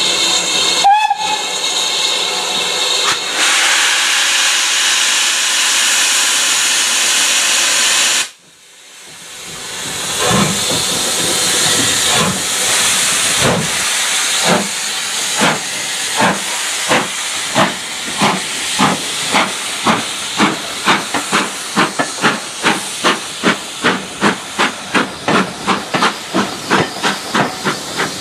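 BR Standard Class 4MT 2-6-4T steam tank locomotive standing with steam hissing, giving a short whistle about a second in; the hiss cuts off suddenly partway through. It then starts its train away, exhaust chuffs beginning slowly and quickening, with steam hissing from the open cylinder drain cocks.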